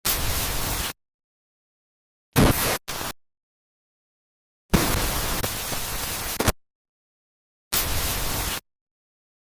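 Edited sound-effect bursts of static-like hiss, each cut in and out abruptly with dead silence between: about a second near the start, a short broken burst at two and a half seconds, a longer burst around five to six and a half seconds, and another just before the end.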